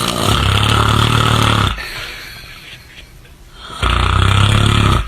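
A sleeping cat snoring loudly: two long snores with a low rattle, one at the start and another near the end, with a quieter breath between.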